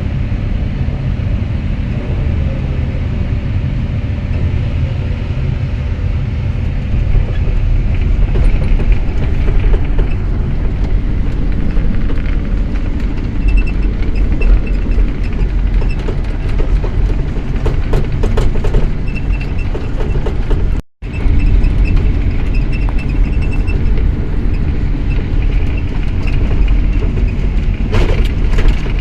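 LiuGong hydraulic excavator running, its diesel engine giving a heavy, steady rumble, with a few sharp knocks past the middle and near the end and a thin high whine that comes and goes. The sound cuts out for a split second about two-thirds through.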